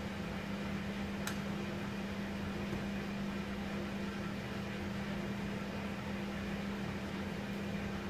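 A steady machine hum on one low tone with an airy whir, like a fan or small motor running, and one small click about a second in.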